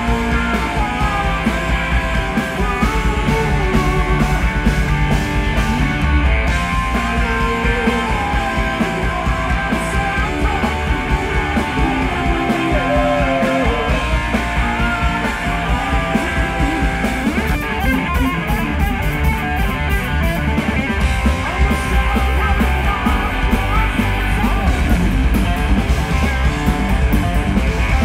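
Live rock band playing loud through a stage PA: electric guitar, bass guitar and drums.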